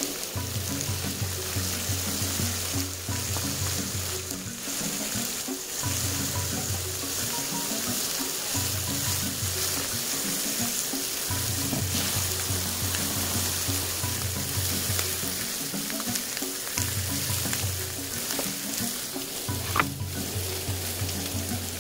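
Lamb steaks sizzling steadily as they fry in a non-stick frying pan, under background music with a steady bass line. A single sharp knock sounds near the end.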